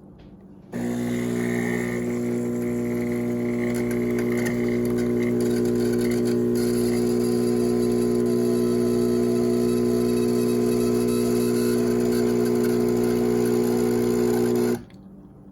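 Automatic bean-to-cup coffee machine running. It starts about a second in, keeps up a steady humming drone with a hiss above it, and cuts off abruptly shortly before the end.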